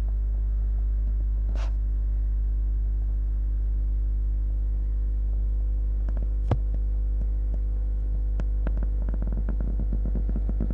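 Steady low electrical hum of aquarium equipment, a pump running. A single sharp click comes about six and a half seconds in, and light irregular crackling follows near the end.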